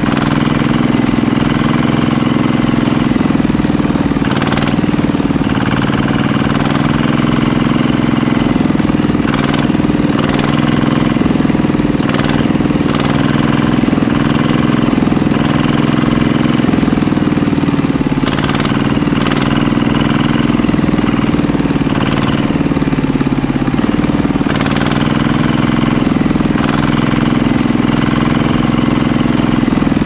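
Model power tiller's DC motor and gear train running steadily, a loud even hum with occasional short clicks, as the iron wheels churn through mud.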